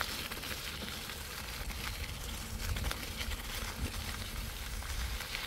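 Faint, steady outdoor background noise: a low rumble with a light hiss and no distinct event.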